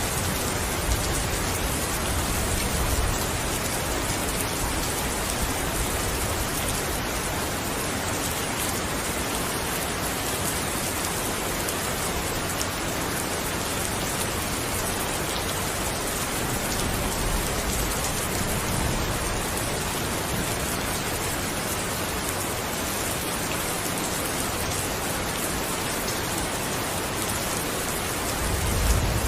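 Steady, even rain pouring down. A low rumble of distant thunder sits under it near the start and builds again near the end.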